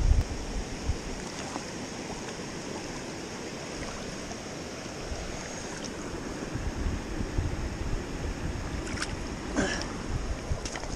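Steady rush of a flowing river, with wind buffeting the microphone in low rumbles. A few brief knocks and a rustle sound near the end.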